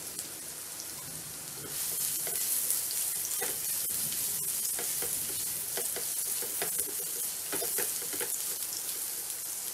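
Minced garlic sizzling in a little oil in a wok. The sizzling grows louder about two seconds in, and from then on a spatula stirs and scrapes the garlic around the pan in short strokes.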